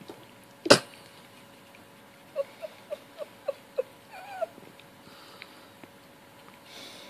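Young cat giving a quick run of six short squeaky chirps, then a brief rising-and-falling mew, as it gnaws on a piece of unripe fruit. A single sharp click about a second in is the loudest sound.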